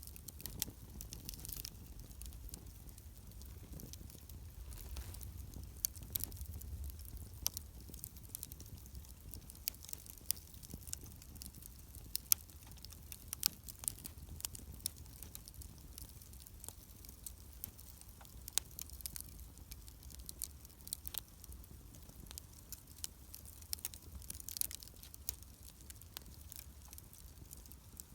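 Wood campfire crackling, with irregular sharp pops and snaps over a faint low rumble.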